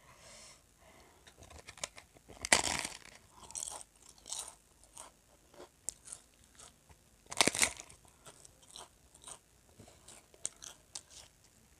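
Crisp papad being bitten and chewed: two loud crunching bites, one a few seconds in and another past the middle, with many lighter crunches of chewing between and after.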